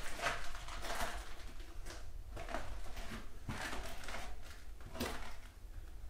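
Footsteps: irregular steps and scuffs, one or two a second.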